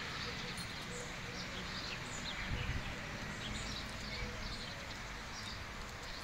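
Small birds chirping: short, high calls repeating every second or so over a steady outdoor hiss.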